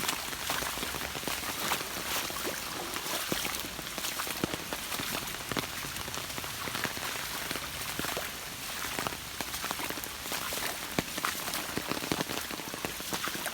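Heavy rain falling steadily, with a constant hiss and many scattered drops ticking close by.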